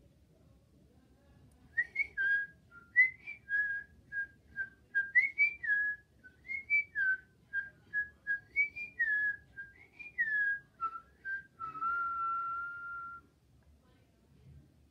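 A person whistling a tune: a run of quick notes sliding up and down, ending on one long held note.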